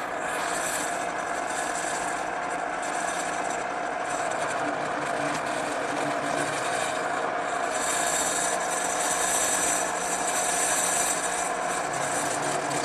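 Drill press running with a quarter-inch brad point bit, boring dowel holes through a wooden frame: a steady motor hum under the rasp of the bit cutting wood.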